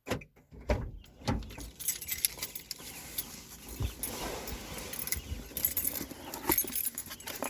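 A few sharp clicks and knocks, then rustling and jingling handling noise with many small clicks.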